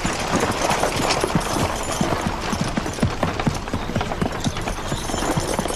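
Horses' hooves clip-clopping at a walk on hard ground: irregular, overlapping clops several times a second over a steady background.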